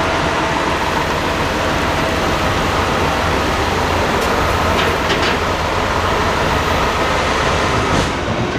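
Diesel engine of a multi-axle off-road trial truck running steadily under load as it crawls over a steep dirt slope, with a continuous low hum. A few light knocks come about halfway through.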